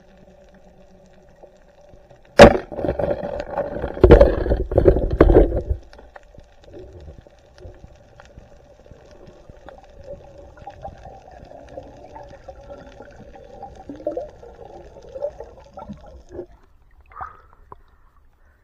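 Underwater water noise from a night spearfishing dive: a sharp crack about two and a half seconds in, then a few seconds of loud rumbling and knocking, then fainter water movement with a faint steady hum.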